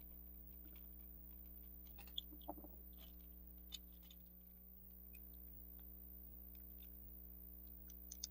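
Near silence over a steady low hum, with a few faint, sharp clicks of small plastic gears and housing parts being handled and fitted, mostly two to four seconds in and once more near the end.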